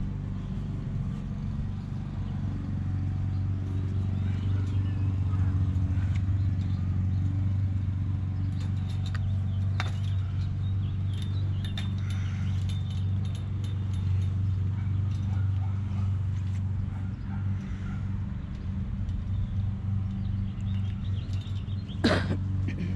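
A steady low machine hum, with small metallic clicks and jingles as pliers twist and snip the tie wires holding chain-link mesh to the fence top rail. The sharpest click comes near the end.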